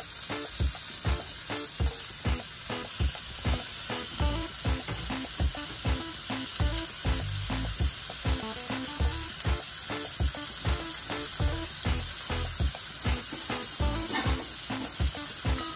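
Raw chicken breast sizzling steadily in hot oil in a cast iron skillet, just after being laid in to sear. Background music with a steady beat plays under the sizzle, about two beats a second.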